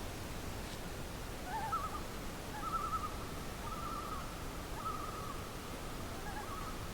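Common loons calling their wavering tremolo: a series of short quavering phrases, some higher and some lower and overlapping, over a steady background hiss.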